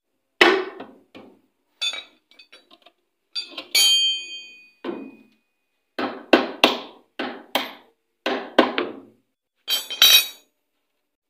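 Metal tool strikes and clinks on washing-machine gearbox and pulley parts during assembly: about a dozen sharp knocks, one with a short metallic ring about four seconds in, then a quick run of taps from six to ten seconds.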